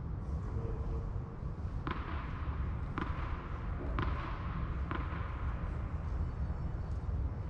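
Tennis ball being struck with a racket: four sharp pocks about a second apart, each with a short echo in the large covered hall, over a steady low rumble.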